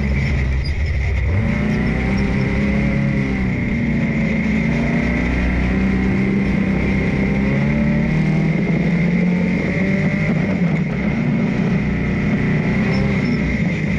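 Dune buggy engine running under load, its pitch rising and falling as the throttle changes, with a steady high whine alongside.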